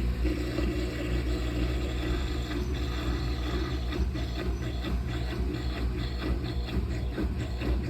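Brastemp Clean washing machine running a delicate wash on a linen curtain: a steady motor hum with water and fabric churning in short, regular strokes from a few seconds in.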